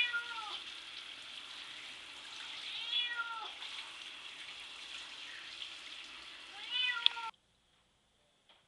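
A cat meowing in a bathtub while being bathed: three drawn-out meows, each falling in pitch, about three seconds apart, over a steady hiss of running water. The owner reads the meows as the cat disliking the bath and wanting out. The sound cuts off abruptly near the end.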